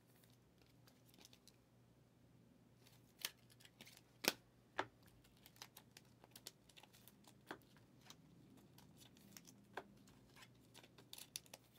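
Near silence with a handful of faint, sharp clicks and taps of trading cards and plastic card holders being handled on a table, scattered a second or so apart.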